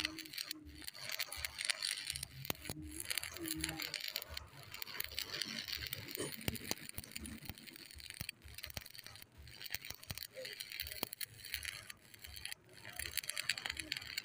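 Stick-welding arc crackling and sizzling steadily as the electrode burns along the joint between two steel bars, cutting out briefly a few times.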